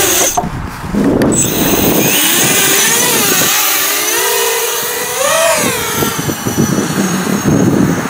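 Racing quadcopter's four DYS 2206 2000KV brushless motors and propellers whining on a 4S battery, the pitch swooping up and down with throttle as it takes off and climbs. The whine rises highest about five and a half seconds in.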